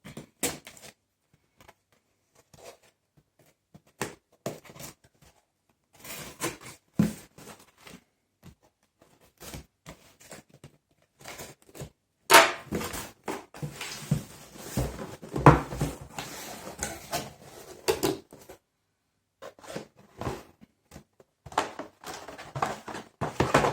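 Packaging from a laptop delivery being handled and unpacked: scattered knocks, scrapes and rustles with short silent gaps, busiest in the middle stretch.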